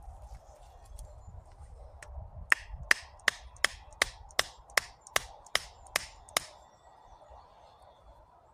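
The small hammer head of a 16-piece survival multitool striking a stake to drive it into the ground: eleven quick, sharp strikes, about two and a half a second, starting about two and a half seconds in.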